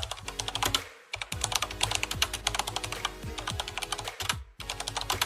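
Computer keyboard typing sound effect: rapid key clicks over background music, breaking off briefly about a second in and again about four seconds in.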